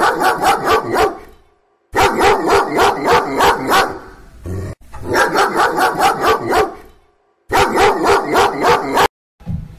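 A dog barking in rapid volleys, about six or seven barks a second, in four bursts of one to two seconds. The bursts are separated by short silent gaps and cut off abruptly.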